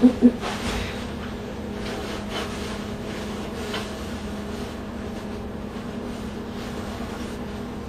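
Steady room hum with a constant low tone in it, typical of a room air conditioner running, and faint rustling as paper pages are handled. A few brief knocks come right at the start.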